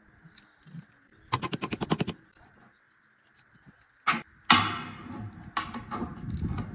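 A quick rattle of about nine sharp metallic clicks, then, about four seconds in, hammer blows on 22-gauge sheet-metal coping, the second and loudest one ringing on, followed by lighter knocks.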